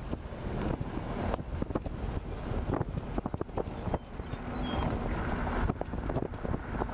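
Strong, gusty wind from a severe thunderstorm buffeting the microphone: an uneven rumble with repeated sudden gusts.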